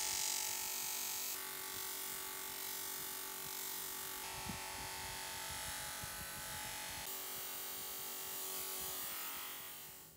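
Bench grinder motor running, with a small metal part held against its spinning wheel, making a steady grinding hiss over a faint motor hum. The sound shifts abruptly a few times and fades out near the end.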